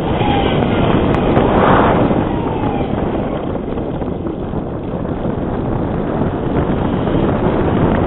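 Air rushing over the onboard camera's microphone on a Bixler RC plane in flight, swelling briefly about a second and a half in, with a faint electric motor whine gliding up and down in pitch.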